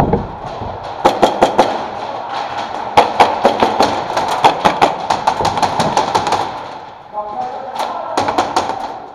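Rapid shots from replica skirmish guns in an indoor close-quarters game, coming in quick runs of several shots a second: a short run about a second in, a long stretch from about three to six and a half seconds, and another short run near the end. A steady murmur of distant voices lies underneath.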